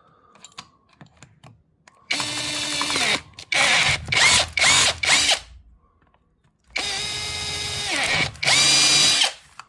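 Power drill with an 8mm bit drilling holes out: one steady run with a brief pause, a string of short trigger bursts, then a second longer run, the motor's whine dropping in pitch as it winds down after each.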